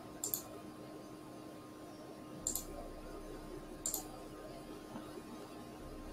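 A few sharp computer mouse clicks: a quick pair near the start, another about two and a half seconds in and one about four seconds in, over a faint steady electrical hum.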